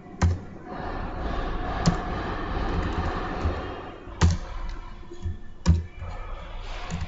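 Computer keyboard being typed on: a few separate sharp keystrokes a second or more apart.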